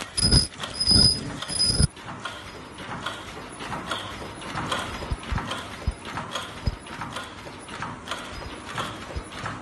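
Automatic face-mask production machine running, its mechanisms clacking in a steady rhythm. For about the first two seconds there are heavy thumps with a high ringing tone about every 0.7 s, then lighter, quicker clicks.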